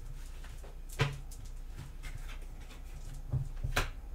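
Tarot cards being handled on a tabletop: a few soft taps and knocks, the clearest about a second in and two close together near the end.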